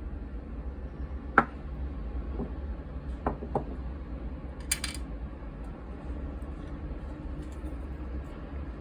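A few clinks and knocks of dishes and utensils, the sharpest about a second and a half in, then three lighter taps and a brief scrape, over a steady low hum.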